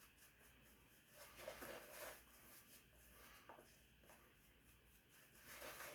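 Near silence, with a few faint soft rustles about a second and a half in and again near the end.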